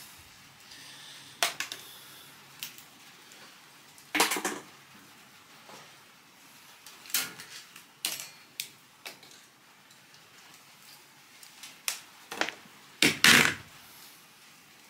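Scattered clinks, taps and knocks of metal and plastic microwave parts being handled during a strip-down for scrap, with a louder clatter near the end.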